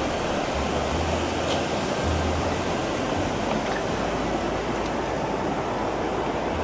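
Water rushing steadily over a low stepped weir and churning in the foamy pool below.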